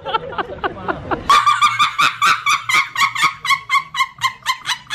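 A man chuckling, then about a second in a woman's shrieking laughter takes over: a rapid, even string of high-pitched hoots, several a second.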